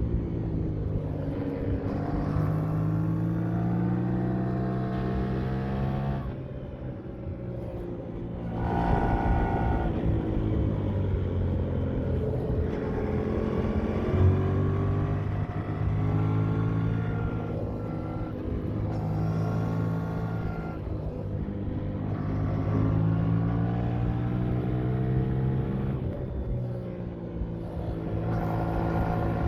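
Yamaha MT-07 parallel-twin engine and exhaust on the move, its pitch rising and falling as the rider works the throttle through the gears. It eases off and goes quieter about six seconds in, then pulls hard again about nine seconds in.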